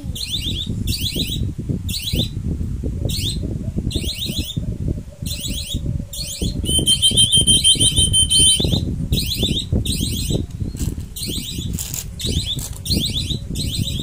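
Shrill, high chirps repeating about twice a second, each chirp a quick run of pulses, with a held high whistled note about seven seconds in. Low rustling and handling noise runs underneath.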